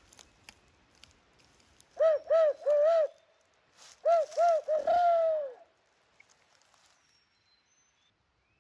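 Barred-owl 'who-cooks-for-you' hooting: two loud phrases of rounded hoots. The second phrase ends on a long, falling note.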